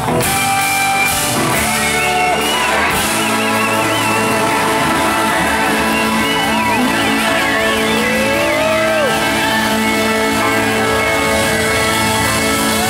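Live rock band playing loudly, heard from among the audience: electric guitars, drums and percussion under sustained chords, with a wavering, gliding lead line on top.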